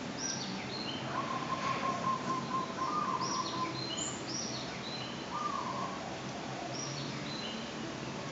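Small birds chirping, many short high calls one after another, with a held whistle-like note in the middle, over a steady low hum.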